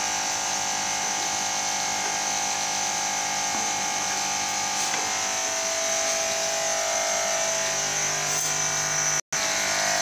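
Steady electric motor-like buzzing hum, broken by a brief gap about nine seconds in.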